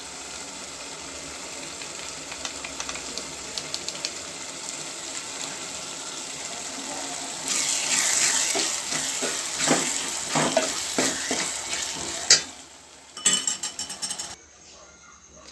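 Sev-onion curry sizzling in a pan while a spoon stirs it, scraping against the pan. The stirring gets louder about halfway through, then a sharp clack comes and the sizzle drops low near the end.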